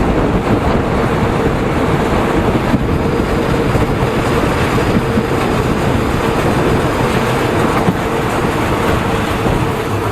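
Steady running noise of a moving train, a continuous rumble with a steady hum underneath.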